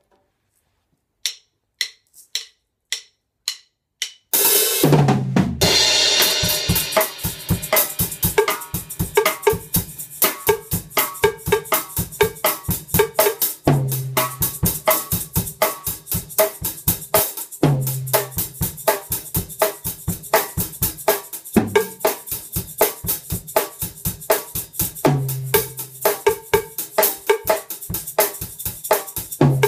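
A count-in of six sharp clicks, then a drum kit comes in with a cymbal crash and plays a steady bossa nova groove: fast even cymbal ticks over snare, with a low drum note coming back every few seconds, and a second player adding hand percussion.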